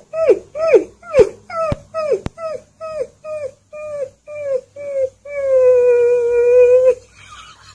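Husky-type puppy howling: a run of short yelping calls, each falling in pitch, about two a second, then one long steady howl near the end.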